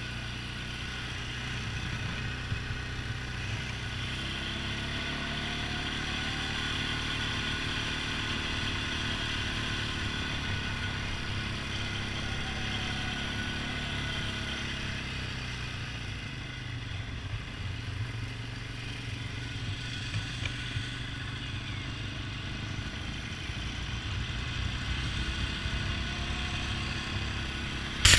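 Honda ATV engine running under way, its pitch rising and falling several times as it speeds up and slows down.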